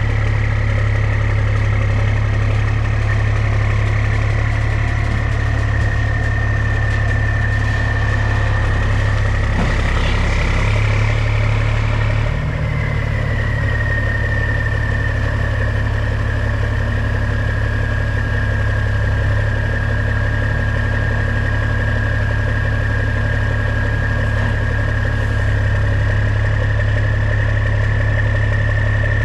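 Heavy diesel engine running steadily, a deep rumble with a thin high whine over it. The engine note shifts slightly about twelve seconds in.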